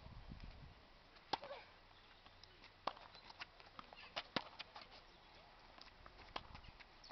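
Tennis ball struck by rackets and bouncing on a hard court: a string of sharp knocks, the loudest about a second and a half in, others near three and four seconds and one near six and a half seconds.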